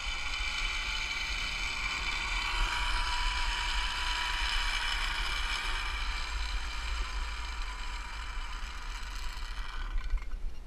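Zip-line trolley pulleys running fast along the steel cable: a steady high whine with a rushing hiss. It stops suddenly about ten seconds in, with a sharp knock.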